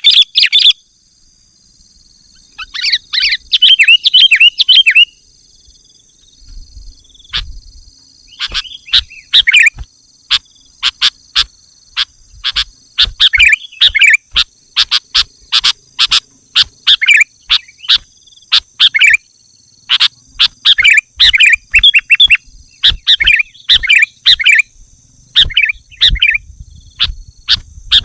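Sooty-headed bulbul (kutilang) singing, in repeated short bursts of quick, bubbly chirping notes with brief pauses between them. Loud, with sharp clicks scattered through the song.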